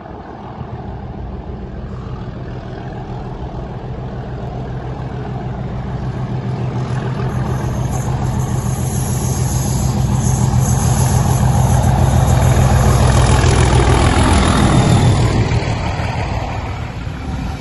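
Diesel locomotive hauling a rake of coaches approaches and passes at speed: its engine drone grows steadily louder, peaks about fourteen seconds in and drops in pitch as it goes by, then the coaches' wheels rumble past on the rails. A high thin whine rides over it from about seven seconds in until the locomotive passes.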